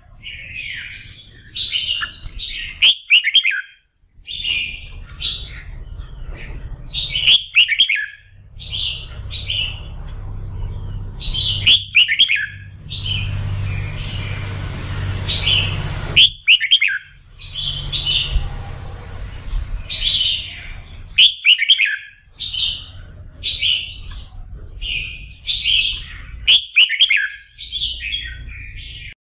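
Red-whiskered bulbul in full song: short, rapid phrases repeated every second or two, with a few sharp clicks among them and a low hum underneath.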